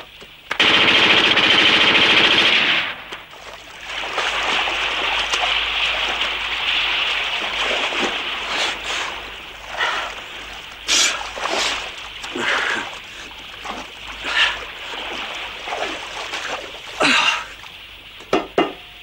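A loud burst of machine-gun fire lasting about two seconds, starting about half a second in, followed by a long stretch of splashing, churning water broken by scattered sharp reports of gunfire.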